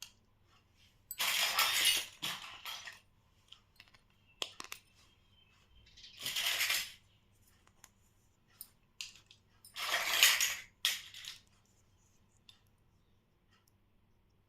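Miniature toy kitchen pieces being handled and unpacked: scattered light clicks and clinks, with three louder bursts of noise, each lasting under a second.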